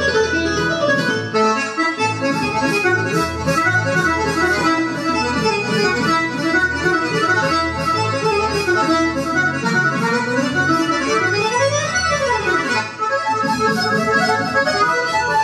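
Accordion playing a busy melody over steady, pulsing bass notes, with a quick run that sweeps up and back down about ten to thirteen seconds in.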